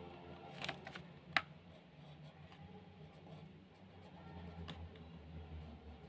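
Faint pen writing on a workbook page, with a few sharp taps of the pen tip, the loudest about a second and a half in, over a low steady hum.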